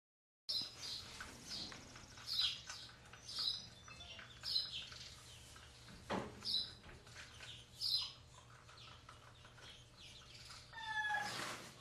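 Chickens clucking in short repeated calls, about one a second, with a longer falling call near the end.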